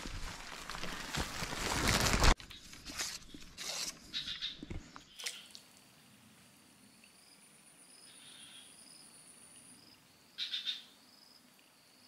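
Footsteps rustling through dry palm fronds and undergrowth, growing louder and then cutting off abruptly a little over two seconds in. A few scattered rustles and clicks follow, then a quiet stretch with a faint, high insect trill pulsing steadily in the background.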